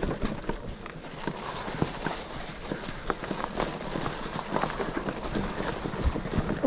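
Mountain bike riding over a rough forest dirt trail: tyres rolling on the ground and frequent irregular rattling knocks from the bike as it jolts over bumps.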